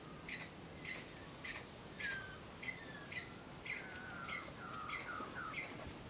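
Birds chirping: short sharp calls repeated about twice a second, with short falling whistled notes among them, more of them in the second half.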